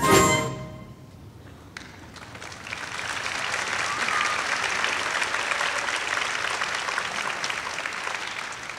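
Theatre audience applauding, swelling from about two seconds in and tapering off near the end, just after the last brass chord of the musical number dies away.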